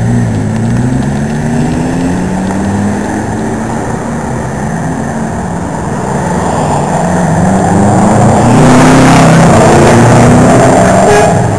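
Sports cars accelerating past, engines revving with rising and falling pitch. The loudest pass builds about two-thirds of the way through and drops away just before the end.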